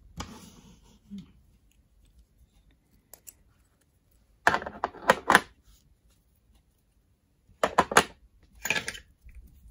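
Diecast metal toy coins clicking and clacking against a plastic display stand as they are set in place: a cluster of sharp clicks about halfway through and two more near the end.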